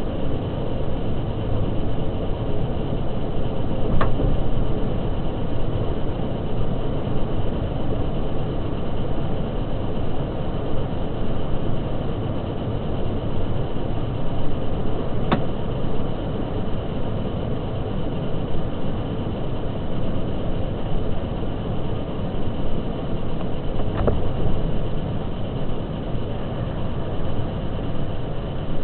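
Steady road and engine noise of a car driving along a city street, heard from inside the car, with three faint ticks spread through it.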